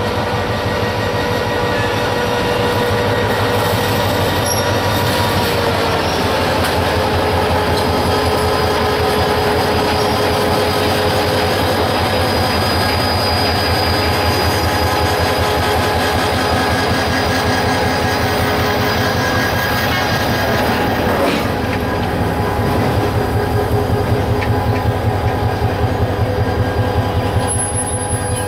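Diesel-hauled freight train of bogie oil tank wagons rolling past on a curve. The locomotive's engine is running and the wheels give steady squeals, and in the last few seconds the tank wagons' wheels clatter in a regular rhythm over the rail joints.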